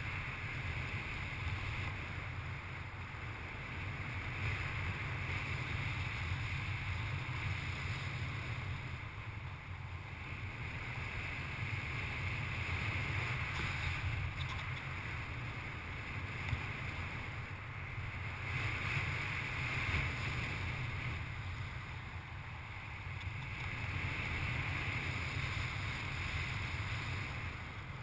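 Wind rushing over the camera microphone of a paraglider in flight, a steady low rumble with a hiss on top that swells and eases every several seconds.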